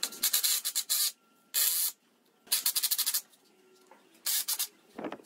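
Makita 18V cordless impact driver driving screws through a caster plate into a wooden pallet frame, in about four short bursts of rapid hammering with short pauses between them.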